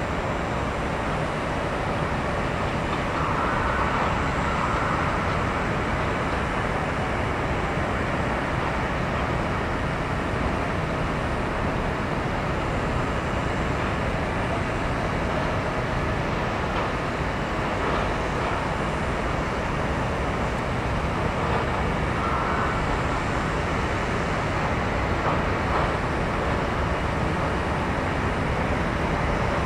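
Steady, unbroken din of diesel engines and heavy machinery, such as a fire engine's pump and excavators working a collapsed-building debris pile.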